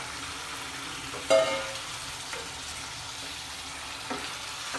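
Marinated chicken pieces frying in hot oil in a kadhai, a steady sizzling hiss, while a wooden spatula stirs them. One brief ringing knock about a second in, as the spatula strikes the pan.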